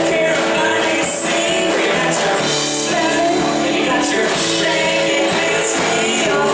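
Live band playing a country-rock song: strummed acoustic guitar and electric guitar over bass and drums, with regular cymbal strokes.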